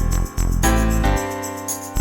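Background music: an upbeat instrumental track with a steady beat and bright chiming high notes.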